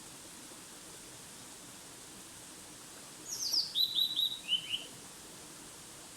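A small songbird sings one short, quick phrase a little past three seconds in: a run of chirps that steps down in pitch in three groups, high notes first and lower ones last, over a steady background hiss.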